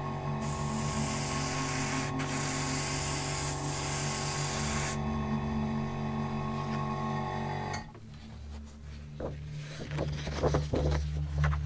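Airbrush spraying: a steady hiss of air and paint for about four and a half seconds, broken briefly near two seconds in, then stopping. Background music plays throughout.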